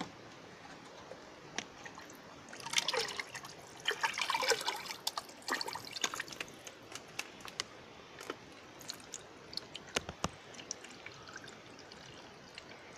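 Dark liquid fertilizer scooped from a bucket with a plastic mug and poured through a mesh tea strainer into a plastic bowl: splashing and trickling about 3 to 5 seconds in, then scattered drips and small splashes.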